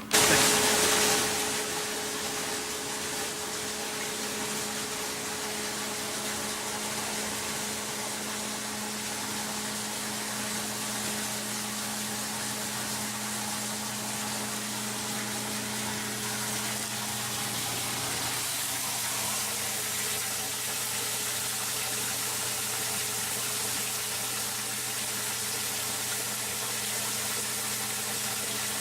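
Steady hiss of running water over a low, even pump hum, as from an aquaponics system's water circulation. One of the hum tones drops out about two-thirds of the way through.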